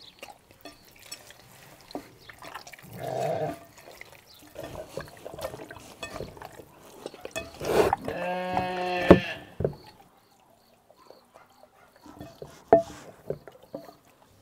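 Wet squelching and slapping of raw chicken pieces being kneaded by hand in marinade in a glass bowl. About eight seconds in, a brief pitched call, about a second and a half long, is the loudest sound.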